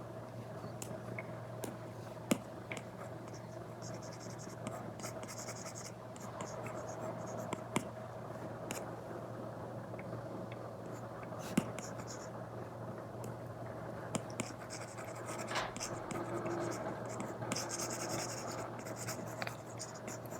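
Apple Pencil Pro tip scratching in drawing strokes across an iPad screen fitted with a paper-like matte screen protector, with a few sharp taps of the pencil tip on the glass. A faint steady hum sits underneath.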